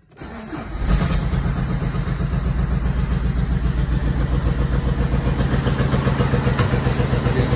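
Audi 2.0 TDI pumpe-düse four-cylinder diesel (BPW engine) cranking and starting within about the first second, then idling with an even, rapid rhythmic knock. The knocking is the sign of a badly worn camshaft and cam followers.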